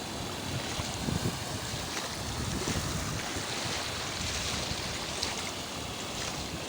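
Sea waves and surf washing steadily, with wind buffeting the microphone in low rumbles.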